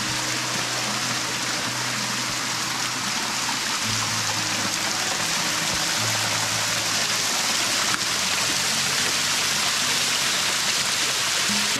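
Small waterfall spilling down a rock face and splashing onto rocks and a shallow pool: a steady, loud hiss of falling water. Soft background music of low held notes plays underneath.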